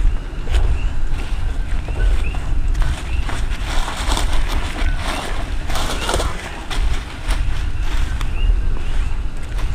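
Deep continuous rumble of an erupting Kilauea lava fissure, with sharp crackles and a hissing surge that swells about four seconds in and fades a couple of seconds later. Faint short high chirps repeat throughout.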